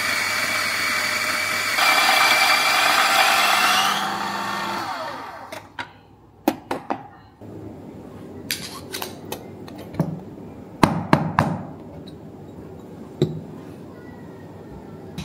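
Electric coffee grinder running as it grinds beans, then its motor stops about four seconds in and spins down with a falling whine. After that come a series of sharp knocks and clinks of a metal portafilter and espresso tools being handled on the counter.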